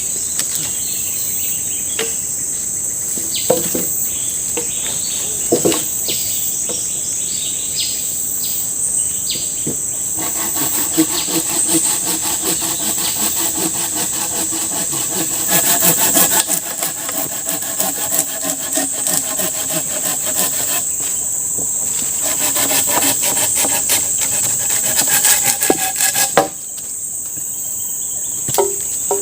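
Steady high-pitched buzzing of forest insects, with a few knocks in the first seconds. About a third of the way in, a louder, rapidly pulsing buzz joins and cuts off abruptly a few seconds before the end.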